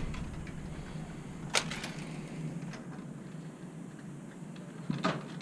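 Two short sharp clicks of hand tools on electrical wire, about a second and a half in and again near the end, over a faint steady low hum.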